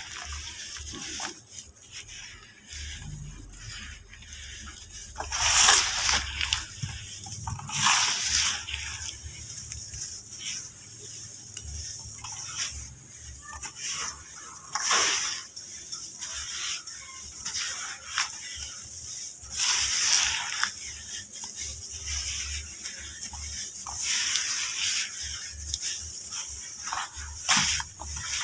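Hands mixing and squeezing dry red dirt powder into wet dirt paste in a plastic tub: gritty rustling and crumbling, with louder crunchy bursts every few seconds as handfuls are pressed and broken.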